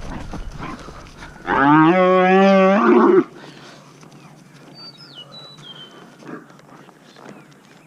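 A dairy heifer bawling once: a loud, drawn-out moo of about a second and a half that rises in pitch at the start and is then held.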